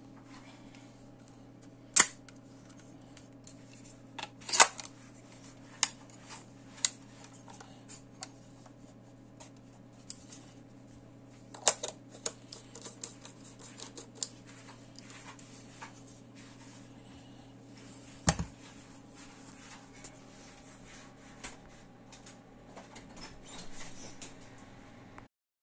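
Mechanical clicks and light ticking from a FED-4 rangefinder camera and its Industar-61 lens being handled, with a few sharp, louder clicks scattered through, over a steady low hum.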